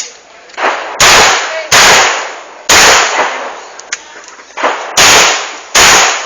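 Gunshots: about five loud shots fired at an uneven pace, two quick pairs and one single, each trailing off over about half a second, with a couple of fainter reports in between.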